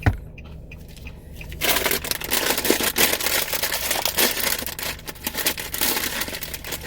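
Crinkling plastic of a Doritos chip bag being handled, a dense crackly rustle that starts about one and a half seconds in, after a short low thump at the start. The car's steady low hum sits underneath.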